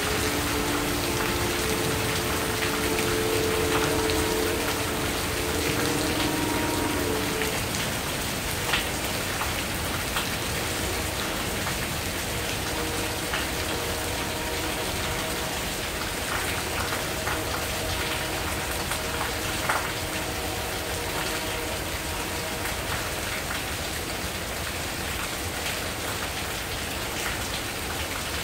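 Steady heavy rain pouring down, with a few sharper drips close by. A low steady hum sounds under the rain and stops about seven seconds in.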